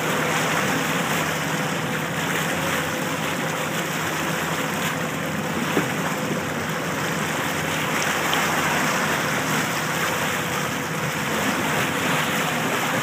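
Motorboat under way at towing speed: a steady engine hum under the rush of the wake water.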